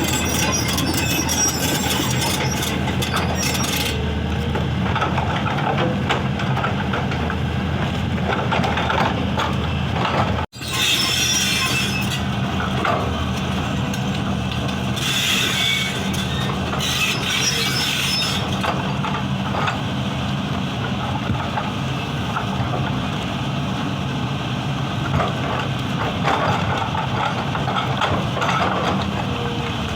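Excavator's diesel engine running steadily under load while its hydraulic breaker hammers at rock, a dense rattle of rapid blows over the engine. The sound cuts out abruptly for an instant about ten seconds in.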